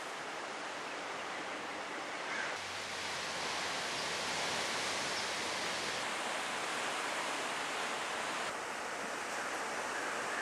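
Steady rushing noise of ocean surf, changing a little in tone a few times.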